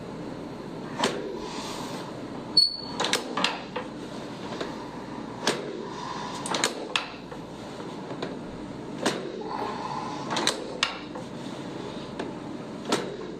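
Scattered sharp knocks and clicks, about a dozen over several seconds, over a steady low hiss, during a chiropractic leg stretch on a treatment table. About two and a half seconds in, a louder click comes with a short high pip.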